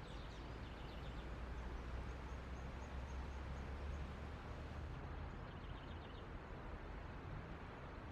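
Faint outdoor ambience: a steady low rumble with short runs of quick high chirps from a small bird, once near the start and again about two thirds of the way through, and a faint string of very high notes between them.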